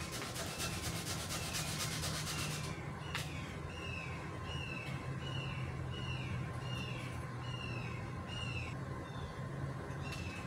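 Sandpaper rubbed by hand over plywood in quick back-and-forth strokes for about the first three seconds. After that, a bird sings a steady run of short down-slurred whistles, about two a second, over a faint steady hum.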